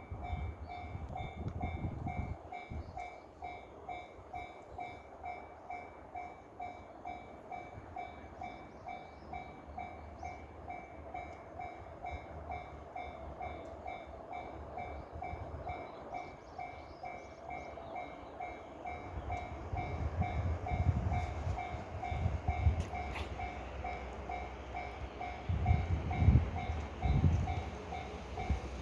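Japanese level-crossing alarm sounding its repeating clanging bell, about two strikes a second. A passing electric train rumbles over the crossing, loudest in the last third.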